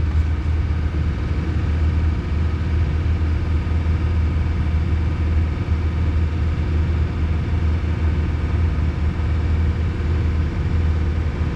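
Nissan Frontier pickup's engine running steadily at a raised speed of about 2000–2500 rpm, held there to purge trapped air from the cooling system.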